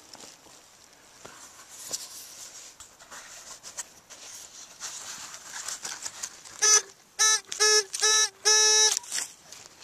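Hands scraping and digging through loose soil and dry grass, then a metal detector beeping five times at one steady pitch, the last beep the longest, as it picks up a metal target in the dug hole.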